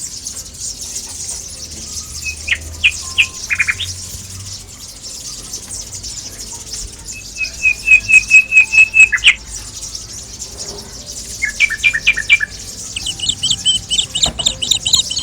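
Small songbirds singing in a tree. Several bouts of quick, evenly repeated notes come and go, the longest about two seconds, over a steady high-pitched chorus of chirping.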